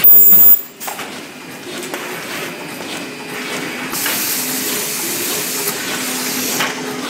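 Clear-book sealing and welding machine running, with a steady low hum. A very loud, brief high-pitched burst comes right at the start, and a stretch of hiss runs from about four seconds in until shortly before the end.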